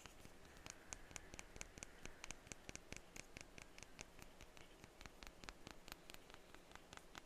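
Light, rapid tapping on perfume bottles, faint crisp clicks at about five a second.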